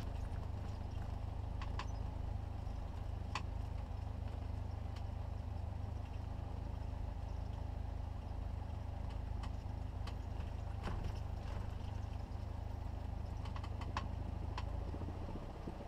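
Cessna 172's piston engine idling as the plane taxis, a steady low drone with a few faint clicks. The drone eases slightly near the end.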